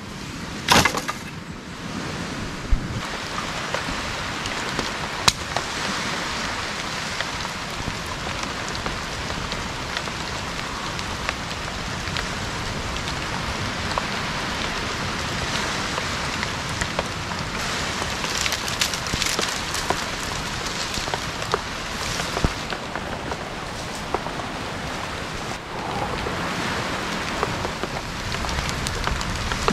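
Steady tropical rain falling, with a few sharp snaps and cracks over it, the loudest about a second in.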